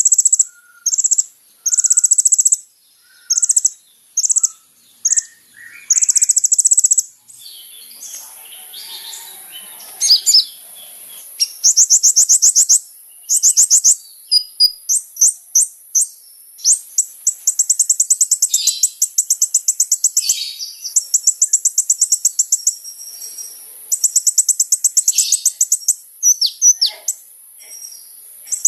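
Kolibri ninja sunbird singing: very high, rapid trilled phrases. The first few seconds hold short separate bursts, and longer continuous trills follow past the middle, over a steady high hiss.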